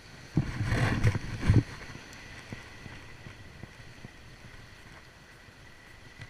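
A loud burst of wind and handling noise on an action camera's microphone, about half a second in and lasting about a second with two peaks. After it, a steady low wash of wind and sea against rocks.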